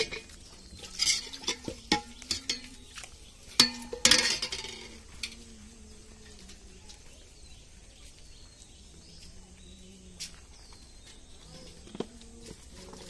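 Steel utensils clinking and knocking, a ladle against a stainless steel pot: a run of sharp clinks in the first few seconds, the loudest ringing about four seconds in, then quieter with a single click twice more near the end.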